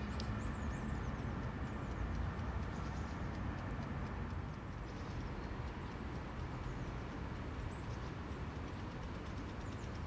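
Outdoor ambience: a steady low rumble with a hiss over it, and a few faint high chirps in the first second.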